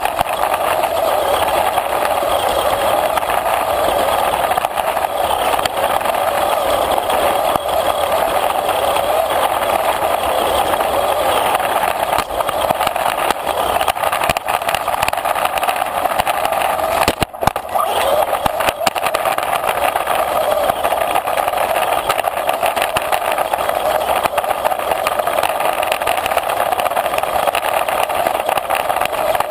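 RC car's motor and gears running steadily, with a brief break about 17 seconds in.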